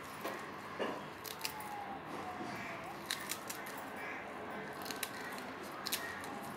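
Faint kitchen handling: a few scattered light clicks and rustles as fresh coriander and mint leaves are dropped onto gram flour in a plastic bowl. A faint thin drawn-out tone sounds in the background about two seconds in.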